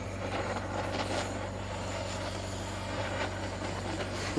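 Portable gas blowtorch burning with a steady hiss, with a low hum beneath it, as its flame singes the down off a plucked duck.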